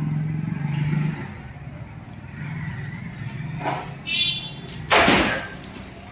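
Motor vehicle engine running with traffic noise: a steady low hum, a brief high squeal about four seconds in, and a loud half-second rushing burst about five seconds in.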